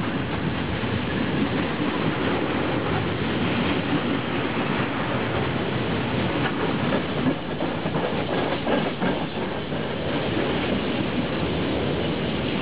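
Freight train wagons rolling past close by: a steady rumble of steel wheels on the rails, with some clattering of wheels over the rail joints.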